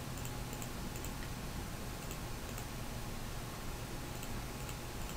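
Faint, scattered clicks of a computer mouse as a list is scrolled, over the recording's steady background hum and hiss.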